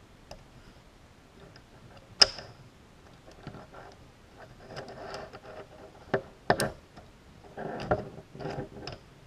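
Small plastic clicks, taps and rustling from handling a micro quadcopter's plastic frame, circuit board and wiring. One sharp click with a short ring comes about two seconds in, with several more knocks and rustling in the second half.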